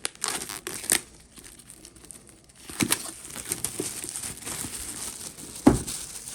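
Packaging wrap being crinkled and torn by hand in two spells of rustling, with a dull thump near the end.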